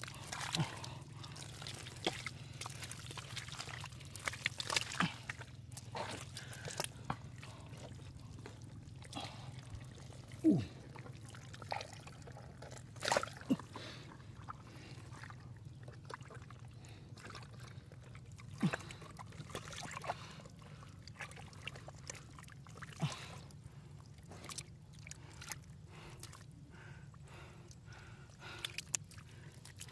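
Wet splashing, dripping and squelching of muddy water, in scattered short bursts, as mud and water are stirred and scooped. A low steady hum runs underneath.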